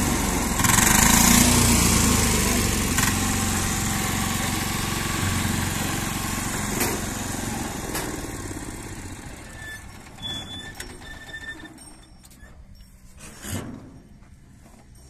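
Engine of a CBS 740 walk-behind power tiller running loud as the machine is driven up onto a bullock cart. It then dies away over the last several seconds, with a couple of knocks near the end.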